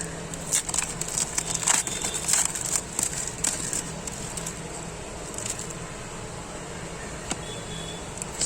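Crinkling and crackling of a foil trading-card packet being torn open and the cards handled, a cluster of sharp crackles over the first three seconds or so, then quieter rustling, under a steady low hum.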